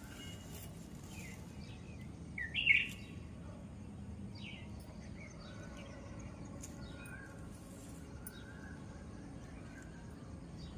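Small wild birds chirping and calling in short high notes, with one loud cluster of chirps about two and a half seconds in and softer calls later, over steady low background noise.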